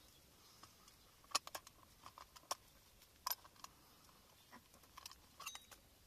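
A handful of light, sharp clicks and taps, scattered unevenly over a few seconds, from a hand handling a tall metal cooking pot.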